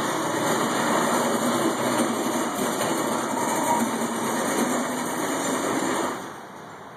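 A motor-driven machine running steadily with an even, noisy sound, which shuts off about six seconds in.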